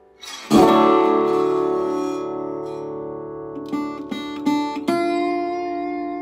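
Background music on acoustic guitar. A strummed chord rings out about half a second in, a few quick plucked notes follow around four seconds in, and another chord rings on near five seconds.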